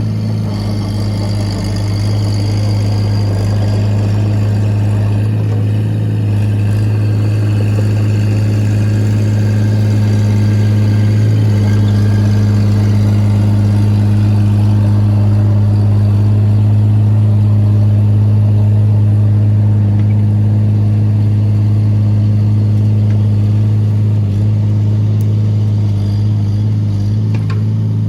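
Excavator's diesel engine running steadily at a constant pitch, with a faint higher whine that wavers in the first several seconds.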